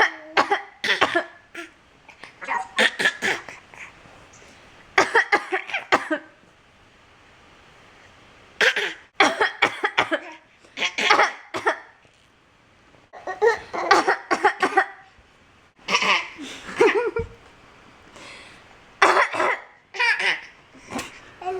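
An adult's coughs answered by a nine-month-old baby's imitated coughs, in about eight short rounds spread out with pauses between them, with laughter mixed in.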